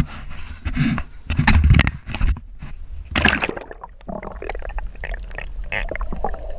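Water splashing and gurgling against a camera plunged under the surface, with a muffled underwater churning and rumble. Irregular loud surges in the first two seconds and again about three seconds in, then it settles into a steadier churn.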